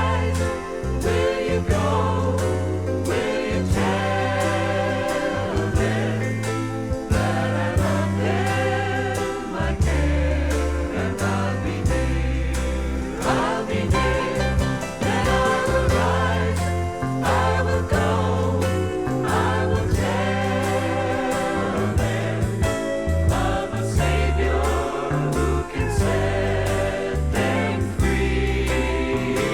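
Gospel music: a choir singing with band accompaniment, over a steady beat and bass line.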